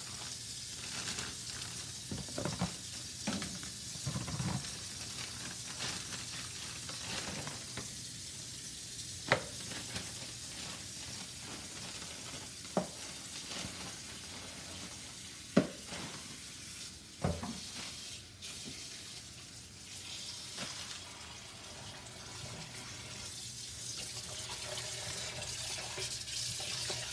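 Cold water running steadily from a kitchen tap over raw pork chops being rinsed in the sink, with four sharp knocks in the middle stretch.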